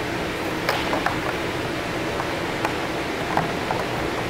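Inflatable blower fans running with a steady rushing whir and a faint hum, with a few scattered faint clicks and knocks.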